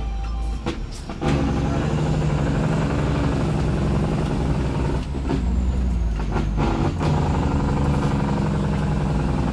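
Truck engine running steadily while driving, heard from inside the cab. The engine sound drops briefly about a second in, then comes back steady, and a few knocks sound near the middle.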